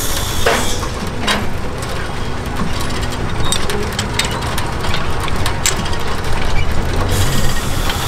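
Irregular metal clicks and clanks from a sawmill carriage's headblock levers and log dogs as the log is dogged and set, over a steady low rumble.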